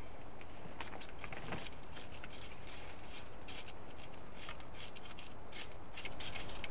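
Carbon-steel bushcraft knife blade scraping birch bark on a log into tinder, a run of short, irregular scraping strokes.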